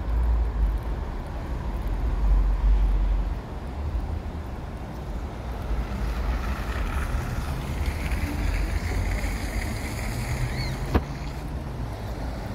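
Wind rumbling on the microphone over a steady outdoor hum of traffic, heaviest in the first few seconds, with one sharp click about eleven seconds in.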